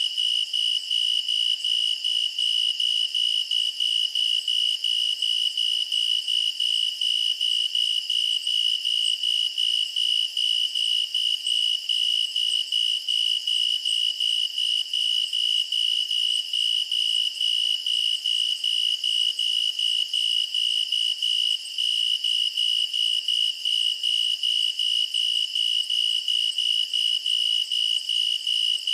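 Crickets chirping in a steady, even rhythm, a high-pitched chirp repeating a few times a second.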